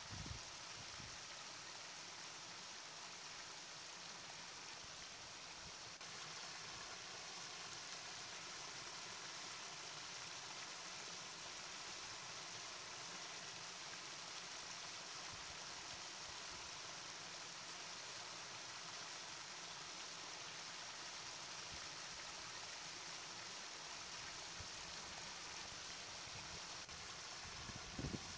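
Small stream flowing and trickling over stones, a steady babbling water sound, with a couple of brief low bumps near the start and near the end.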